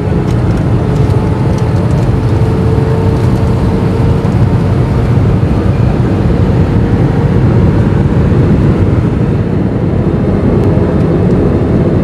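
Steady, loud engine and airflow noise inside an Airbus A320-200 passenger cabin in flight, deep and even, with a faint steady hum over it in the first few seconds.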